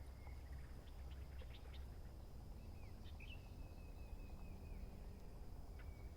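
Faint outdoor ambience with birds calling: a few short chirps, then a drawn-out call about three seconds in. Underneath are a low steady rumble and a thin, steady high-pitched hum.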